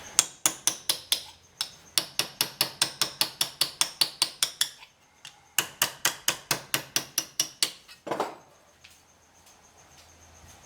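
Hammer beating a steel patch panel into shape, rapid ringing blows about five a second in two runs with a short pause between them, then a brief scrape near the end.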